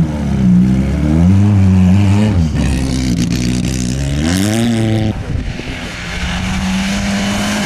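Rally car engines revving hard on snow, their pitch rising and falling again and again as the drivers work the throttle, with abrupt switches from one car to another. In the last couple of seconds one engine holds a steady high drone.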